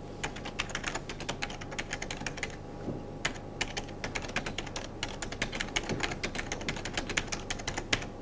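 Typing on a computer keyboard: a quick, irregular run of key clicks with a short pause about two and a half seconds in, over a faint steady hum.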